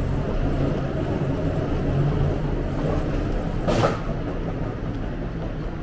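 Steady low rumble of vehicles and idling engines, with a brief sharp hiss about four seconds in.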